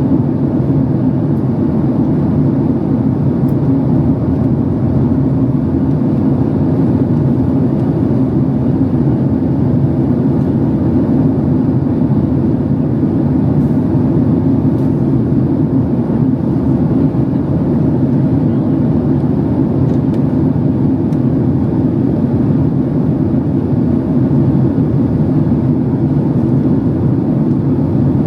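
Steady low drone of engine and airflow noise heard inside the passenger cabin of a Boeing 767-300 in its climb.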